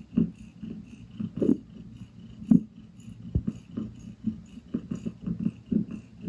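Pregnant Balinese cat in first-stage labour breathing heavily in short rhythmic puffs, about two a second, a sign of her contractions.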